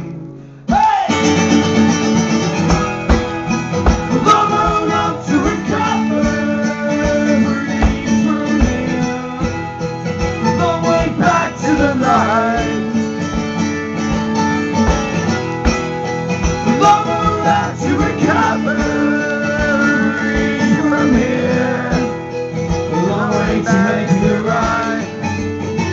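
Two acoustic guitars strumming a rock-folk song, with singing at times. The sound drops briefly just after the start and the strumming comes back about a second in.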